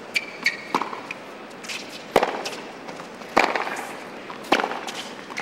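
Tennis ball hit back and forth with racquets in a baseline rally on a hard court: sharp pops about every second and a quarter, with a few short high squeaks and lighter knocks in the first second.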